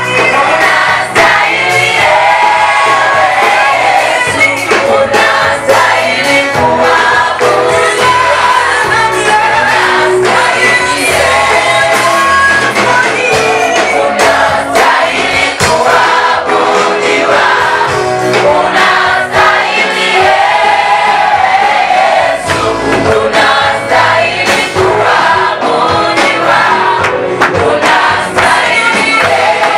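A choir singing a Swahili praise song with band accompaniment and a steady beat.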